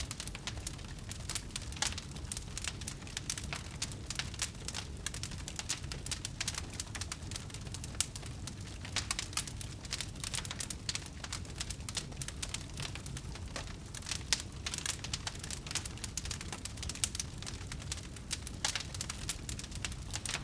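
Wood fire crackling in a fireplace: dense, irregular pops and snaps over a steady low rumble, with a couple of louder snaps along the way.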